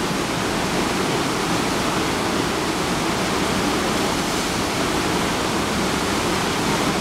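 Whitewater of a standing river wave rushing steadily, a constant churning wash of water with no breaks.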